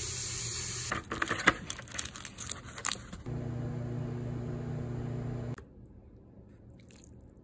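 A bathroom sink faucet runs into a cup of instant noodles and stops about a second in. Then comes a couple of seconds of clicks and crinkling as the cup is handled, the loudest click near the middle. A microwave oven then hums steadily for about two seconds and cuts off abruptly, leaving a low hush.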